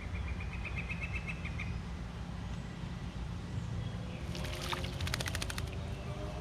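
A small songbird gives a fast trill of short, high notes in the first second and a half. About four seconds in comes a run of rapid, sharp ticks lasting about a second and a half, over a steady low rumble.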